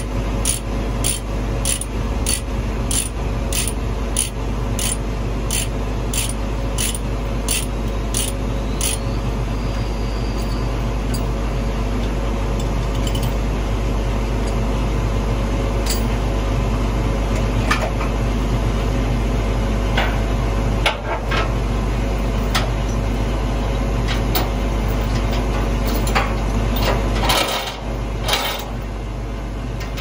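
Chain binder being cranked loose on a combine's tie-down chain, its ratchet clicking about twice a second for the first nine seconds. Then come a few single clicks, and near the end the chain rattles as it is pulled free, over a steady low hum.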